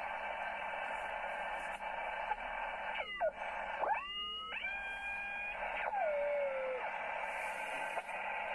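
Receiver audio from a Kenwood TS-530S HF transceiver: steady hiss limited to the voice passband. A test carrier from an RF signal generator is tuned through it near 7 MHz and heard as whistles. They slide down and then up about three seconds in, hold a steady pitch for about a second, and slide down again near six seconds.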